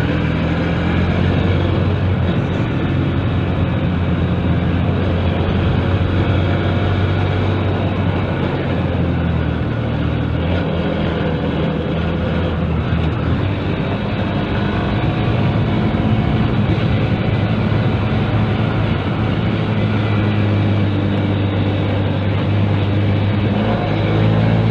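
Motorcycle engine running steadily at road speed, heard from on the bike with a constant rush of noise. The engine note dips briefly about ten seconds in, then climbs a little near the end.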